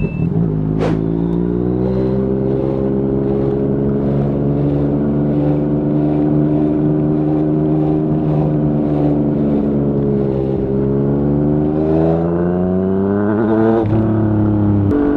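Yamaha MT-09's three-cylinder engine through a Yoshimura R55 slip-on exhaust, riding under load. The revs climb at the start, hold fairly steady, then climb again and fall sharply near the end, as in a gear change.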